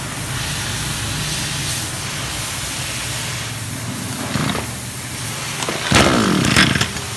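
Small petrol engine of a backpack brush cutter being pull-started: a sharp yank on the recoil starter about six seconds in, with the engine cranking over and its pitch falling away, over a steady low hum.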